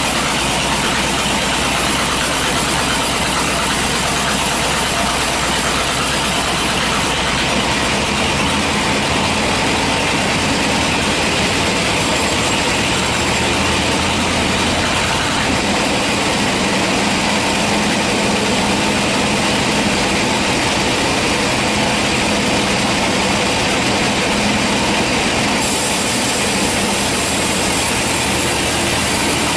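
Band sawmill running, its blade cutting lengthwise through a teak log with a loud, steady mechanical noise. A low steady hum joins about halfway through.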